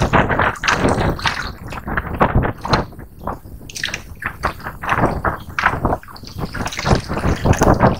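Sea water splashing and slapping in quick, irregular bursts.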